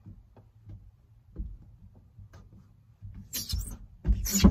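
A hand rubbing and wiping across a truck's window glass: a few faint taps at first, then louder rubbing strokes over the last second and a half.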